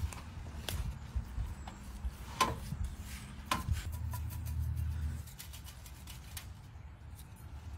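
Seasoning shaken onto a raw whole chicken on a wire rack: a few sharp clicks and taps of shakers and the rack, then a rapid patter of spice landing near the end.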